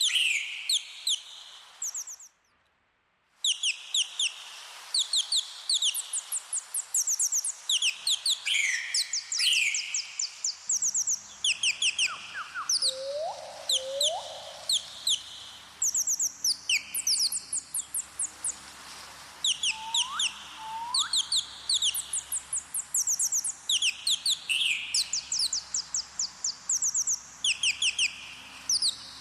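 Small songbirds chirping: rapid runs of short, sharp high notes, repeating over and over, with a pair of lower rising whistles twice. The sound drops out for about a second, two and a half seconds in.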